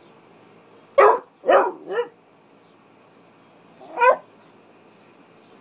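Basset hound puppy barking: three short barks in quick succession about a second in, then a single bark about two seconds later.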